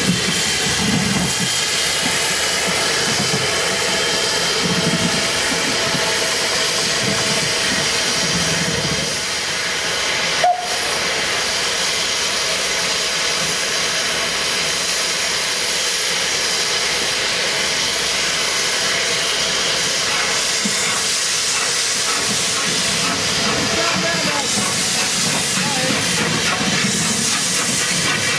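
Steam hissing steadily and loudly from Southern Railway Lord Nelson class 4-6-0 No. 850, with a brief click about ten seconds in.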